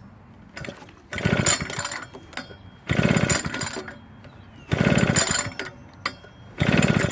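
Husqvarna backpack blower's small two-stroke engine being cranked with the pull-starter, four pulls about two seconds apart, each a rapid chuffing rattle that does not catch. It fails to start, the tank holding old gas that has taken on water.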